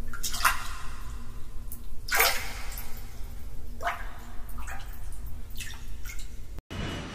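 Water splashing and dripping in about half a dozen separate splashes over a steady low hum, cutting off sharply near the end.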